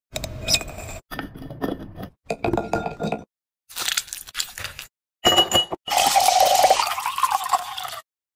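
A run of short, abruptly cut drink-making clips: a muddler clinking and crushing fruit in a glass, then soda poured into the glass with a fizzing hiss near the end.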